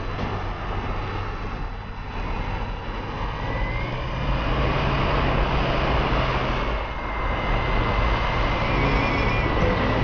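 Air rushing over the onboard keychain camera of an RC glider in flight: a steady rush that grows louder about four seconds in, with a faint steady high whine from about three seconds in.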